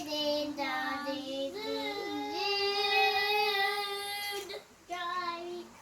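A child singing in a high voice, with sliding notes and one long held note in the middle, breaking off briefly near the end.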